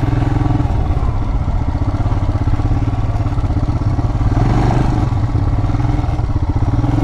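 Royal Enfield Himalayan's single-cylinder engine running at a steady speed.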